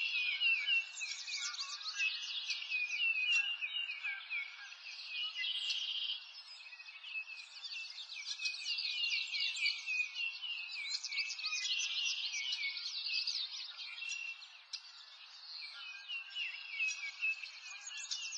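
A dense chorus of small songbirds chirping and trilling over one another, a continuous layer of quick high-pitched calls that eases off for a moment about two-thirds of the way through.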